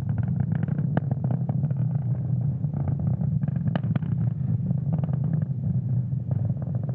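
Falcon 9 first stage's nine Merlin engines firing during ascent: a steady low rumble with rapid, irregular crackling.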